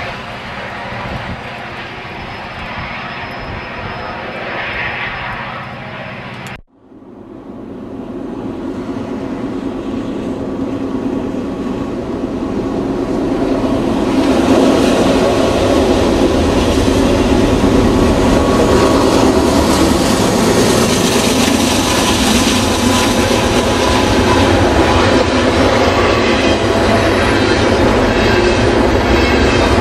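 A bilevel commuter train running past, cut off suddenly, then a BNSF double-stack container freight train approaching and rolling by, its wheel and rail noise building over about seven seconds to a loud, steady run.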